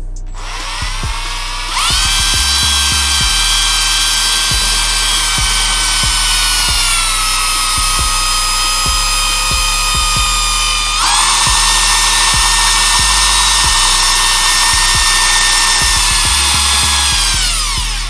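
Power drill spinning a stirring stick in a jar of liquefied cream: its motor whine starts about two seconds in, sags lower partway through, jumps back up sharply, then winds down near the end. A music beat plays underneath.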